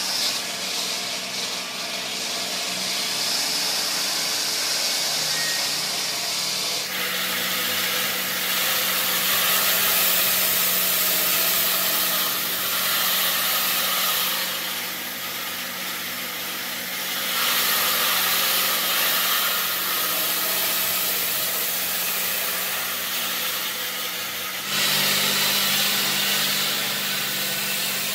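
Large diamond circular saw blades of a stone block cutter grinding through a stone block under a water spray: a steady hissing grind over a constant motor hum. The sound shifts abruptly about seven seconds in and again near the end.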